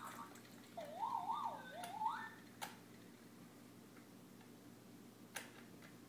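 A baby's short, wavering high-pitched coo about a second in, sliding up and down and rising at the end. Two sharp clicks from the Fisher-Price Jumperoo's plastic toys follow, one near the middle and one near the end.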